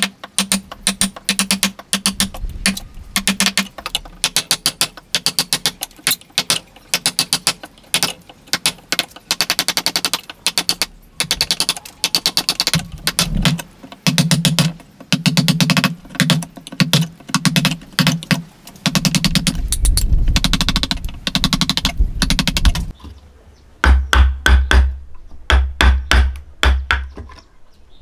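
Chisel chopping into a wooden beam, struck in quick repeated blows, several knocks a second, with heavier, deeper knocks near the end.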